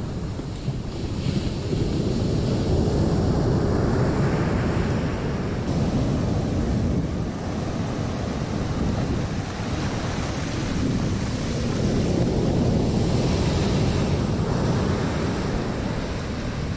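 Ocean surf breaking on a sandy beach, the foam washing up over the sand, swelling louder twice as waves come in. Wind buffets the microphone underneath.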